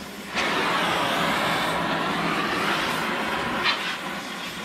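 Oxy-acetylene cutting torch blowing its cutting-oxygen jet through a steel bolt: a steady loud hiss that comes on suddenly about a third of a second in and eases off near the end, with one brief louder burst shortly before it drops.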